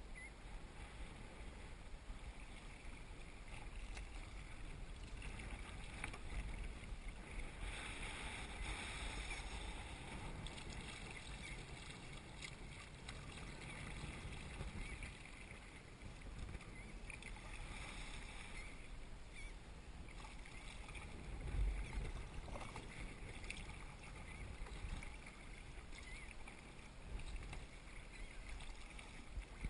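Water splashing and lapping around a kayak as it is paddled over choppy water, swelling with the paddle strokes. A single low thump about three-quarters of the way through.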